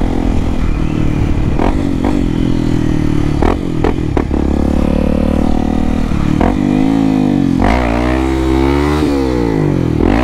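Honda XRE 300 single-cylinder engine with an aftermarket Dore exhaust running at a steady speed, with a few sharp knocks in the first half. From about six seconds in, the engine revs up and down several times.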